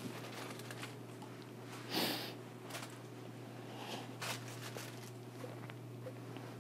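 A woman crying quietly and sniffling a few times, the clearest sniff about two seconds in.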